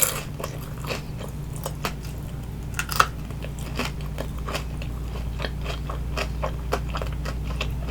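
Close-miked chewing of a crispy baked vegetable spring roll: a quick run of small crunches and mouth clicks, with one louder crunch about three seconds in.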